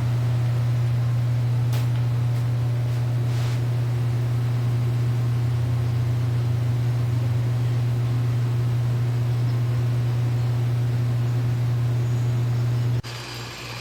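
Pool pump motor running with a loud, steady low hum. Near the end it cuts abruptly to a quieter hum that pulses evenly.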